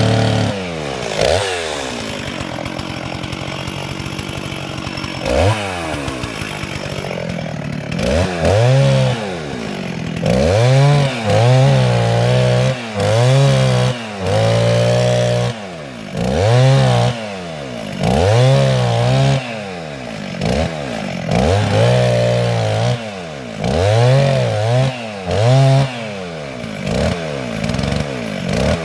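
Chainsaw felling a dead elm: it runs at a low, fairly steady speed for the first several seconds, then is revved in short bursts every second or two, each rising and falling. The bursts are the sawyer cutting a little at a time, stopping to see where the leaning tree will go.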